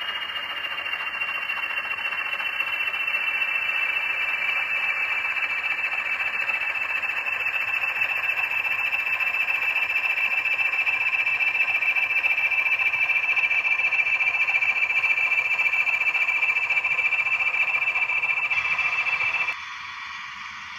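Model railway locomotive running slowly past: a steady high motor whine over the rolling hiss of wheels on the track, growing louder as it comes close. It cuts off suddenly about a second before the end.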